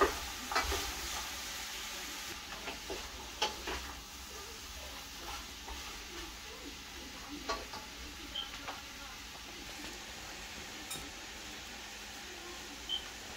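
Wooden spoon stirring a pot of cooking butternut squash, knocking against the metal several times in the first few seconds over a faint steady sizzle, then only an occasional light clink of dishes.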